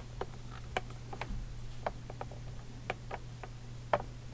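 Irregular light clicks and taps of plastic parts being handled and fitted together while assembling a holographic display, over a steady low electrical hum.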